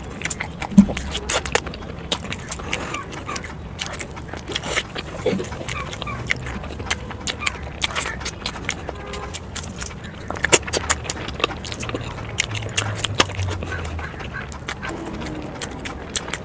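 A person eating spicy eggs close to the microphone: chewing and mouth noises with many irregular sharp clicks and smacks.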